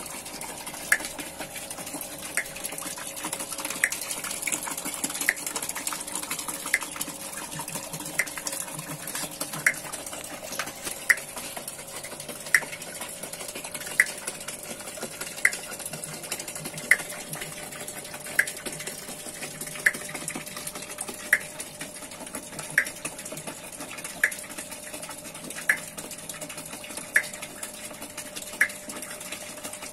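Homemade PVC-pipe water wheel turning under a pumped stream of water: steady splashing of water falling onto the wheel and into the tub, with a sharp click about every one and a half seconds as the wheel's crank linkage goes round.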